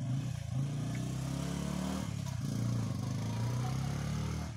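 Motorcycle engine running, a steady low drone whose pitch shifts slightly.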